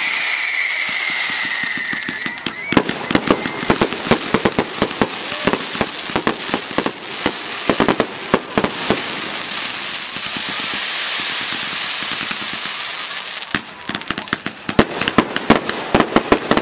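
Fireworks going off. A high whistle falls slightly in pitch over the first two seconds, then comes dense crackling of many small pops. About ten seconds in there are a few seconds of hissing, and the crackling starts again near the end.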